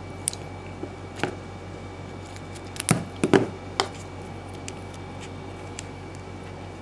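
Electrical tape being pulled off the roll and wrapped around soldered wire joints: scattered short crackles and clicks, the loudest about three seconds in, over a steady low hum.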